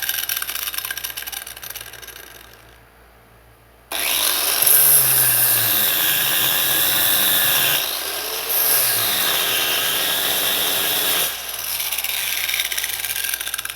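Warrior 4.3 amp angle grinder with a flap disc grinding welding slag off steel welds. The grinding fades away about three seconds in and starts again abruptly about a second later, its pitch bending up and down as the disc is pressed into the work, then eases off near the end.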